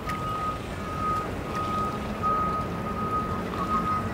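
A vehicle's reversing alarm beeping at an even rhythm: long, high, single-pitch beeps with short gaps, about one and a half a second, over a low background rumble.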